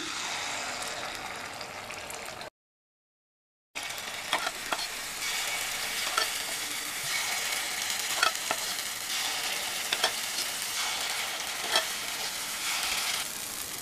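Ghee appam batter sizzling as it is poured into hot ghee in the cavities of a paniyaram pan, a steady hiss with small pops and crackles. The sound cuts out completely for about a second near the start.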